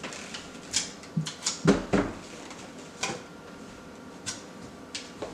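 Scattered light knocks and clicks of handling work on a kitchen cabinet door, the two loudest close together a little under two seconds in.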